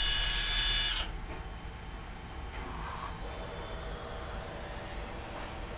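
Rajaram CNC bangle-cutting machine at work on a gold bangle. A loud hissing whine lasts about the first second and cuts off suddenly, leaving a quieter steady machine hum with a faint high whine.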